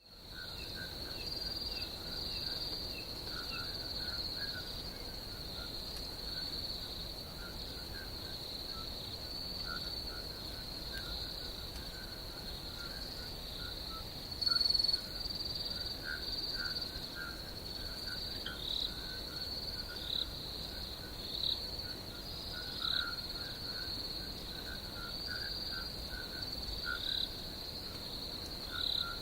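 Night chorus of crickets trilling steadily in a high band, with lower rapid chirping calls scattered throughout and a brief louder chirp about halfway through.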